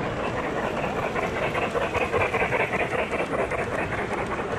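Large-scale model train rolling along metal garden-railway track: a rapid, fine clicking clatter of wheels on the rails that swells in the middle and eases off toward the end as the train passes.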